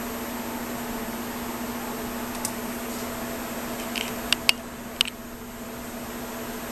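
Steady low hum and hiss of background room noise, with a few sharp, light clicks a little past the middle.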